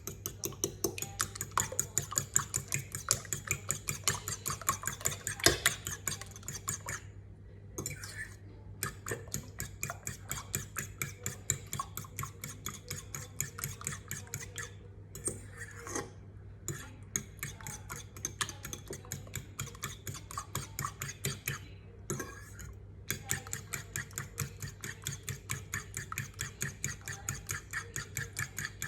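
Eggs being beaten in a bowl with a utensil: quick, regular clinks several times a second, stopping briefly a few times, over a steady low hum.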